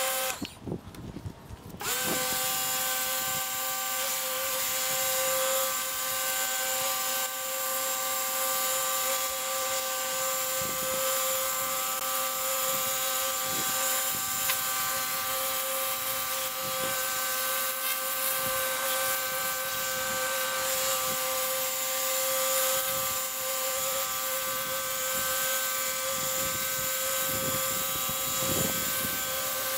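Ryobi electric pressure washer running under load: a steady motor and pump whine over the hiss of the spray on the pavers. It cuts out briefly near the start and starts up again about two seconds in, as the trigger is released and squeezed again.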